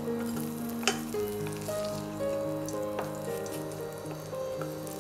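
Hot oil sizzling in a steel kadai as fried yardlong beans are lifted out, with two sharp clinks, about a second in and about three seconds in. Background music with a melody plays under it.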